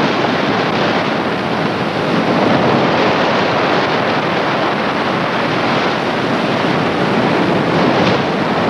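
Heavy surf breaking and churning over rocky ledges: a loud, steady roar of rushing water.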